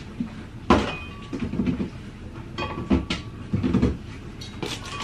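Knocks and clatter of food containers being shifted and taken off the shelves of an open refrigerator, with a sharp knock about three-quarters of a second in and another about three seconds in.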